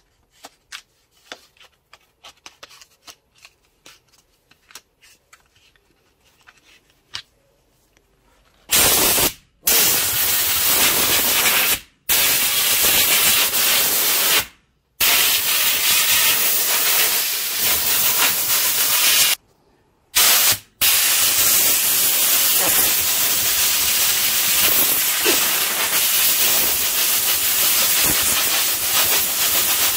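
Compressed-air blow gun blasting dust out of a clogged tractor air filter element: several long, loud hissing blasts with brief breaks, starting about nine seconds in. Before that, light clicks and knocks of the filter being handled.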